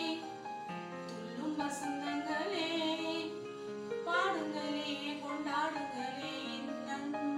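Background music: a slow melody with wavering held notes over sustained chords.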